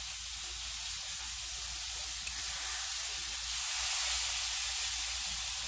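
Steady background hiss with a low hum underneath.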